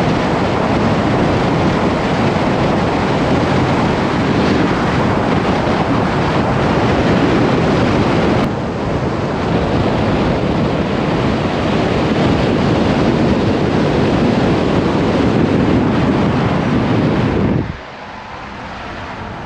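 Strong wind buffeting the microphone: a loud, steady rush of noise that cuts briefly about halfway through and drops away sharply near the end.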